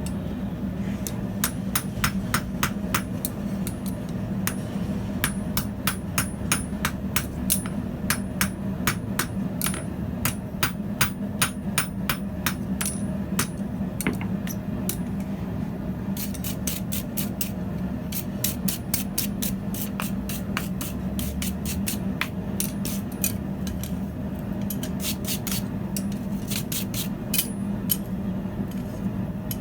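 Hand hammer striking steel on an anvil in runs of about two or three blows a second with short pauses, each blow with a high ring, over a steady low hum.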